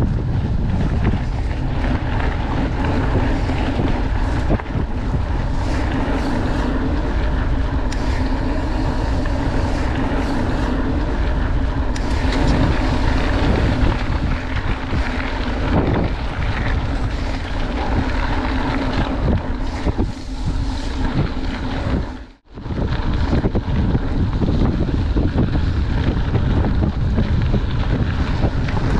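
Wind rumbling on an action camera's microphone as a mountain bike rides a gravel forest road, with the tyres rolling over gravel underneath. The noise is steady and loud, cutting out briefly for a moment about three-quarters of the way through.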